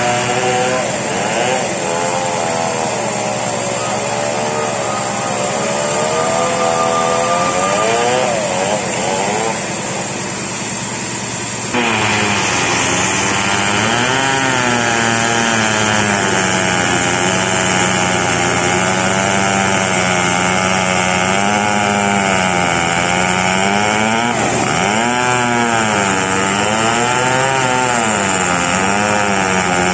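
Two-stroke chainsaw running under load as it rips lengthwise through a very large merbau log, its engine pitch wavering up and down as the cut bogs and recovers. About twelve seconds in it suddenly becomes louder and closer.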